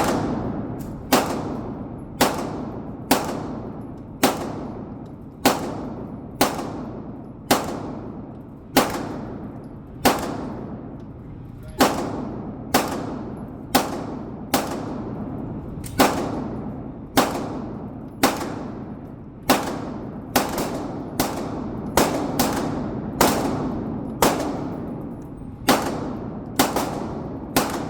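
Century Arms AP5K, an MP5K-pattern 9mm, fired in single shots at a steady pace of about one a second, quickening slightly in the second half, about thirty shots in all. Each shot is followed by a ringing echo.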